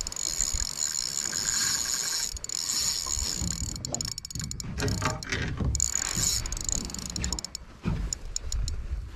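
Spinning reel being cranked on a sea-fishing rod, its gears whirring steadily, with a low rumble over it in the second half and a few sharp clicks near the end.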